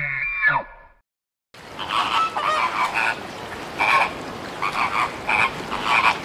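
A flock of flamingos calling: repeated short honking calls over a steady background of the flock, starting about a second and a half in. Before that, the end of a long pitched animal call fades out in the first second.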